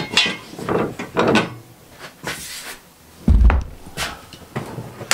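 Steel flat bar being levered and bent by hand in a bench vice: irregular knocks and scraping creaks, with a heavy low thump a little after three seconds in.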